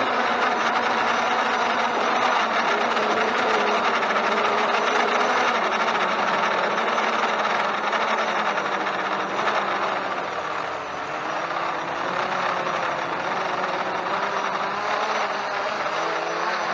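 Quadcopter drone's electric motors and propellers whining steadily, several pitches wavering up and down together as the motors work against gusts, over the rush of wind on the microphone.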